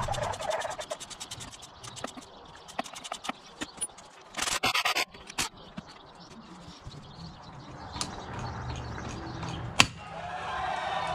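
Hand tools working on a motorcycle engine: a fast run of clicks in the first second or so, scattered clinks, a short loud rasping burst about halfway, and one sharp clink near the end.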